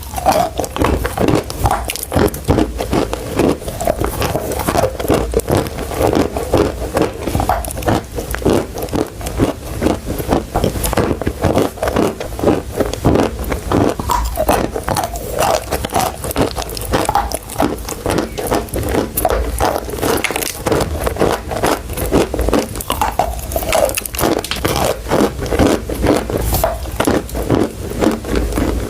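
Close-miked biting and chewing of chalk sticks: continuous crisp, crunchy cracking and scraping as the chalk is crushed between the teeth.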